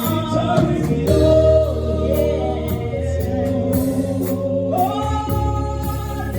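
Gospel worship song: voices singing over a band with a steady bass and a regular beat.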